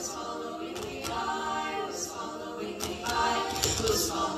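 Choir singing in harmony, several voices holding chords together and moving from note to note.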